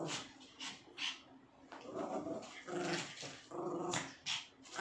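Two small dogs growling in short bursts as they play-fight, with quick snaps in between.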